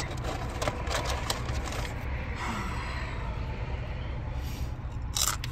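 Steady low rumble of a car's cabin, with scattered light clicks and rustles of eating from a plastic take-out bowl. A louder crackle comes near the end.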